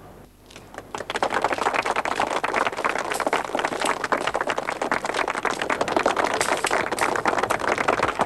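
A crowd applauding: dense, irregular clapping that starts about a second in and keeps on steadily.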